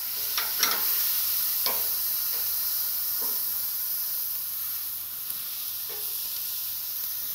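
Raw spatchcocked chicken sizzling on hot gas-grill grates, a steady hiss, with a few sharp clicks of metal tongs against the meat and grates.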